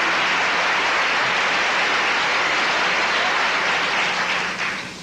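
Large theatre audience applauding steadily, then dying away quickly near the end.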